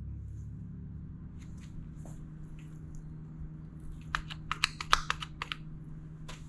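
A quick run of light clicks and taps from small parts and tools being handled, about four to five and a half seconds in, with one more click near the end, over a steady low hum.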